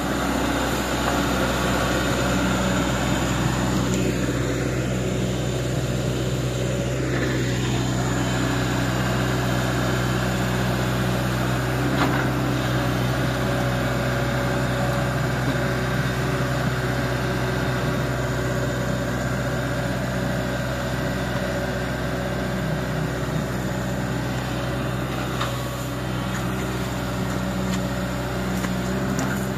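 Sumitomo S265F2 excavator's diesel engine running steadily as the machine crawls through deep paddy-field mud.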